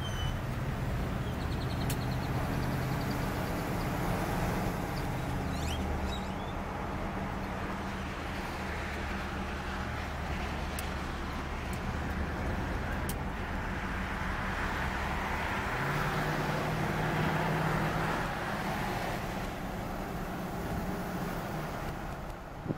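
Inside the cabin of a 1975 Cadillac Sedan DeVille driving onto a freeway: the V8 engine's steady low drone under road and wind noise. The engine note shifts a few times as the car gathers speed.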